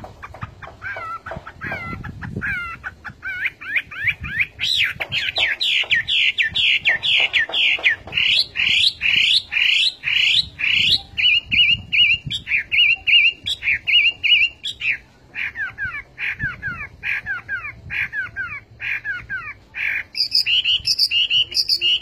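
Chinese hwamei (Garrulax canorus) singing a long, varied song. It runs quick series of down-slurred whistled notes, several a second, switches to steadier level notes in the middle, and ends on higher ringing phrases near the end.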